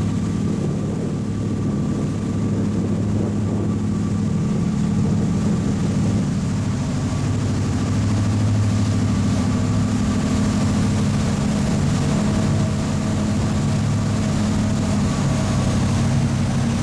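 Passenger ferry's engine droning steadily while underway, a low even hum, with the wash of the churning wake alongside.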